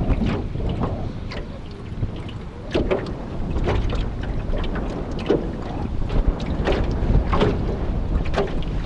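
Strong wind blowing across the microphone as a steady low rumble, with rough water slapping and splashing irregularly against a small floating craft.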